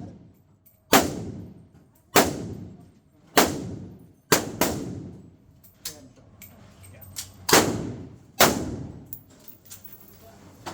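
Heckler & Koch UMP submachine gun in .40 S&W firing single shots, about seven in all at uneven intervals of roughly a second, with two in quick succession near the middle. Each shot rings out with a long echoing tail.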